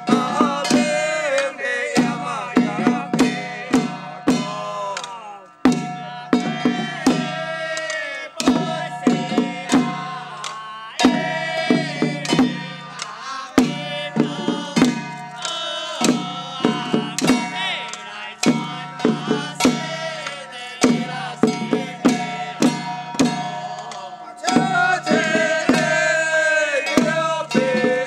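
Music with busy percussion strikes under held tones and a melody whose notes bend and slide.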